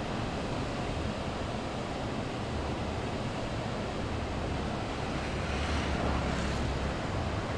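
Steady rushing noise of wind on the microphone, with a low rumble that swells through the middle.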